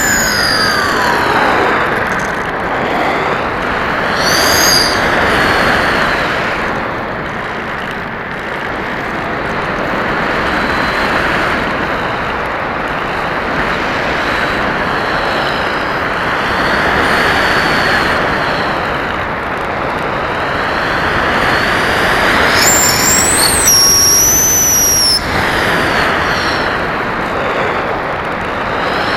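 Onboard sound of a Bixler 1.1 foam RC plane in flight: a steady rush of airflow mixed with the high whine of its 2620 1900kv brushless outrunner motor and propeller, the whine rising and falling with the throttle. A sharper, higher whine comes in briefly near the end.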